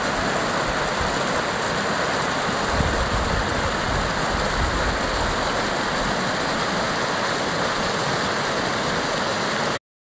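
Muddy flash-flood water rushing and churning over rocks after heavy rain, a steady loud rush of water that cuts off suddenly near the end.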